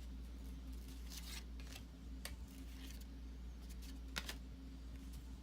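Old cardboard trading cards being handled and shuffled through by hand: a few faint sliding clicks of card stock against card, over a low steady hum.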